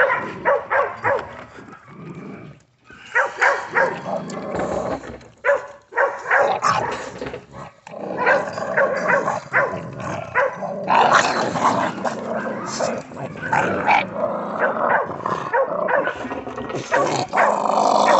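Pit bulls barking and whining over and over in short, rapid yelps, worked up at feeding time.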